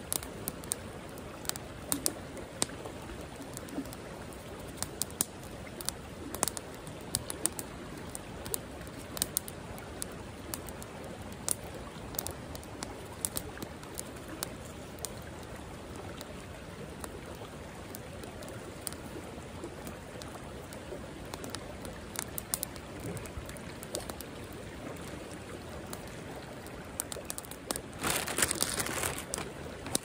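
Small stick campfire crackling with sharp, scattered pops and snaps over the steady rush of a fast-flowing creek. Near the end comes a louder, brief rustling burst.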